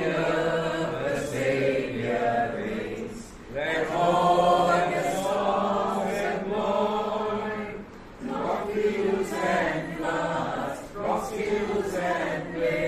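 A small group of mixed men's and women's voices singing a hymn together in unison, unaccompanied, in phrases with short breaks for breath about three and a half seconds and eight seconds in.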